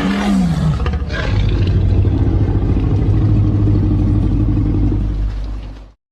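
Tyrannosaurus rex film sound effect: a short falling cry, then a long, low, steady rumbling growl that cuts off suddenly near the end.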